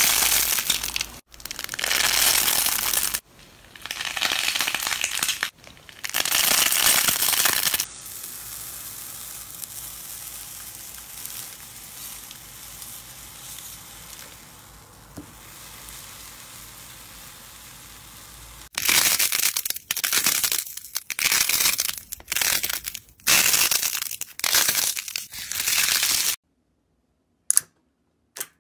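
Porous pink slime crackling and crunching as fingers squeeze it, in four loud squeezes. Then a metal potato masher pressing into sand makes a quieter, softer crunching. Then purple foam-clay balls crackle as they are squeezed, in quick repeated bursts.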